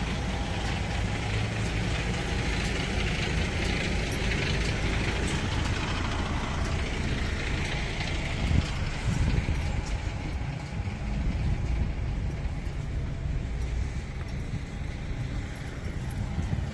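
Diesel engine of a DAF XF truck idling steadily, a continuous low rumble.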